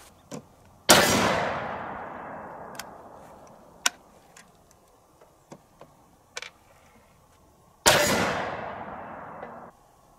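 A .50-calibre T/C Impact SB muzzleloader rifle, loaded with Pyrodex, fired twice about seven seconds apart; each loud shot trails off over a second or two. A few faint clicks come between the shots.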